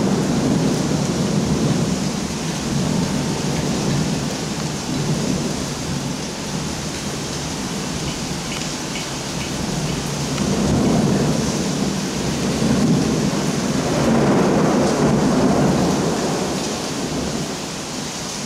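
Thunderstorm: heavy rain falling steadily, with rolling thunder whose rumble swells up twice in the second half.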